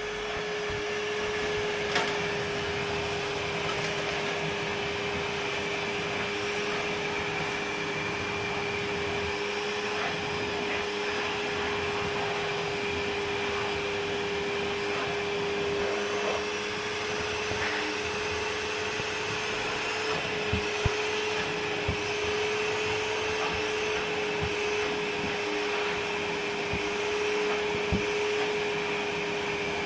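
Ramtons 1500-watt wet and dry vacuum cleaner running steadily, a constant motor whine over the rush of air, with a few light knocks.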